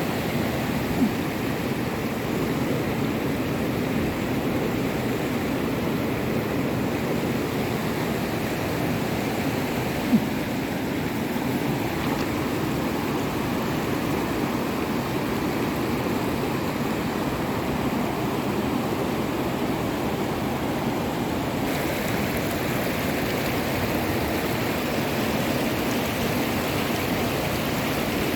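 Steady rush of flowing floodwater, with two brief knocks, one about a second in and one about ten seconds in.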